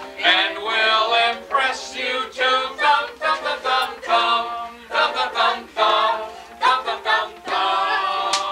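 A group of voices singing a song together, with a few sharp taps, the clearest near the end.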